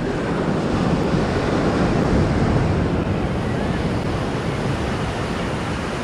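Ocean surf breaking on the beach, the wash swelling to its loudest about two seconds in and then easing off.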